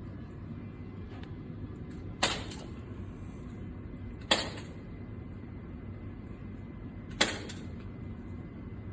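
Three single rifle shots from a Saiga semi-automatic carbine, fired about two and then three seconds apart, each a sharp crack followed by a short echo off the shooting-gallery walls.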